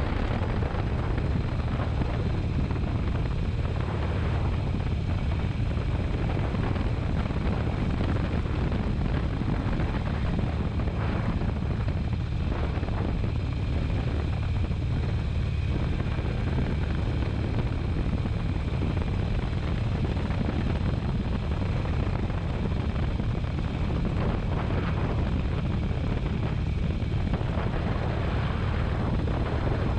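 Motorcycle engine running steadily at cruising speed, a constant low drone, with wind noise over the microphone.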